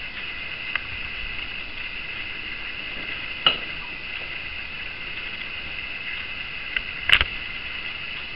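Steady background hiss with a few short light taps and knocks, the loudest about seven seconds in, from hands setting green bell pepper strips onto macaroni in a glass baking dish.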